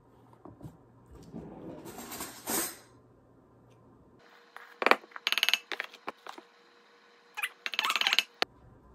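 Flour being measured: a plastic measuring cup scooping through flour with a soft rustle, then a table knife scraping and clicking against the cup and a glass measuring bowl in two quick rattling runs.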